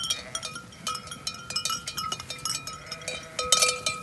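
Bells worn by a moving flock of sheep clanking irregularly, several bells of different pitches ringing out at once, busier near the end.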